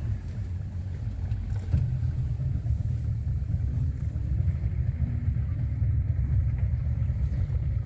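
Low, steady rumble of a small boat's motor running at slow speed as the boat eases up alongside a floating dock.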